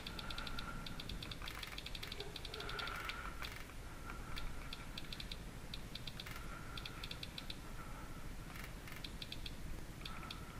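iPod click wheel ticking as it is scrolled through a song list: quick runs of small, rapid clicks, starting and stopping several times, over a low steady hum.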